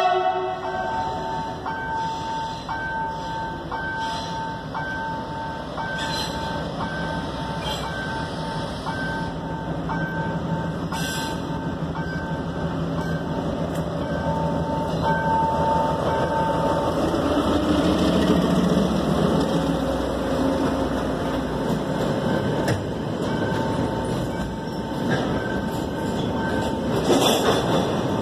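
A level-crossing warning bell rings over and over at a steady pace, about one stroke a second. A Chinese-built diesel freight locomotive approaches and passes, its engine loudest about two-thirds of the way through. Container wagons then roll by on the rails. The tail of a horn blast is heard at the very start.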